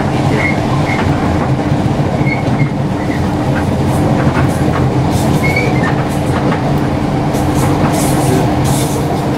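ScotRail Class 318 electric multiple unit running, heard from inside the carriage: a steady rumble and hum with one held tone, scattered clicks from the rails and brief squeaks of the wheels.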